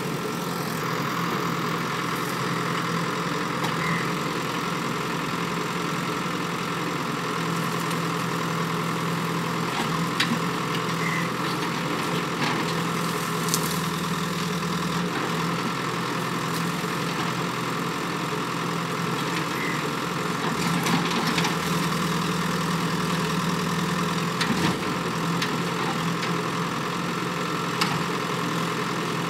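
Diesel engine of a JCB backhoe loader running steadily, with a few sharp clicks or knocks scattered through.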